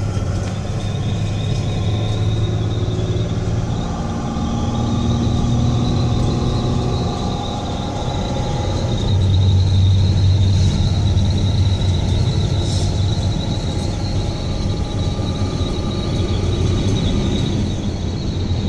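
2021 Peterbilt 337 truck's PACCAR diesel engine running steadily at about 2000 rpm under way, heard from inside the cab as a loud low drone with a faint high whine above it.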